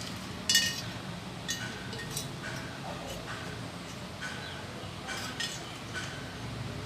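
Small miniature steel kitchen utensils clinking and tapping together as they are handled: about nine light clinks with short ringing, the loudest about half a second in.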